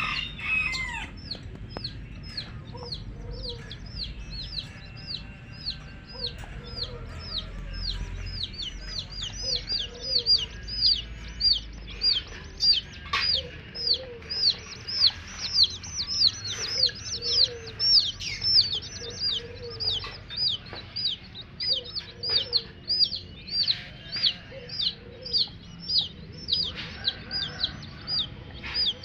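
Baby chicks peeping without a break, short high calls falling in pitch at about two a second, with lower hen clucks now and then.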